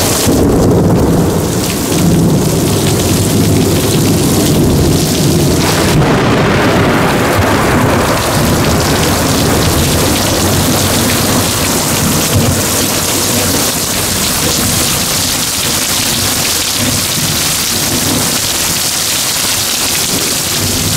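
Heavy rain pouring down steadily, with a long, low roll of thunder over the first several seconds that then fades into the rain.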